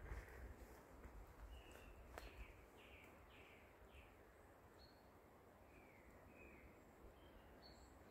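Quiet forest with a small bird calling faintly: a run of four short falling chirps about two to four seconds in, and two more about six seconds in. A low rumble in the first two seconds and a single click about two seconds in.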